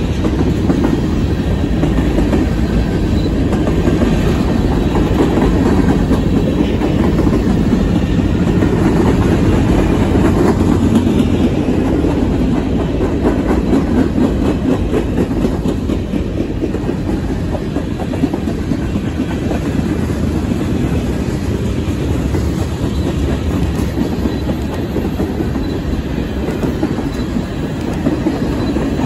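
Freight train's cars rolling past at steady speed: covered hoppers and tank cars, their steel wheels running loudly and steadily on the rails, easing off a little about halfway through.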